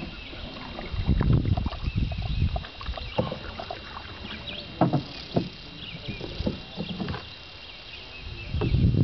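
Canoe being paddled on a river: the paddle dipping and splashing in the water, with a few short sharp sounds around five to six and a half seconds in, and stretches of low rumbling on the microphone about a second in and near the end.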